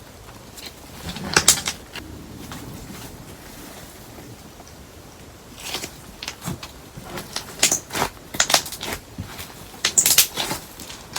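Slime mixed with paper clay being squeezed and folded by hand, making sticky clicks and crackles in several short runs with pauses between.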